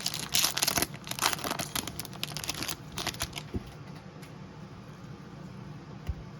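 Trading-card pack wrappers crinkling and tearing as packs are opened: a quick run of noisy rustles over the first three seconds, then only faint handling sounds.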